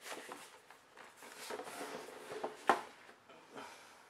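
Cardboard action-figure box with a plastic window being handled, its packaging rustling and crinkling, with a few small clicks and one sharp knock about two and a half seconds in.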